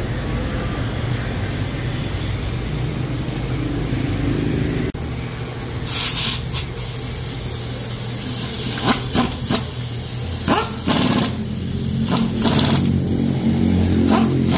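Pneumatic air tool at a tire shop: a steady low machine hum stops abruptly about five seconds in, then about eight short, sharp blasts follow at irregular intervals.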